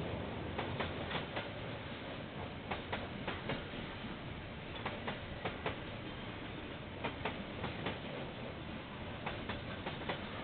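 KiwiRail freight train of container wagons rolling past: a steady rolling noise with frequent, irregular sharp clicks and clacks of the wheels over the rail joints.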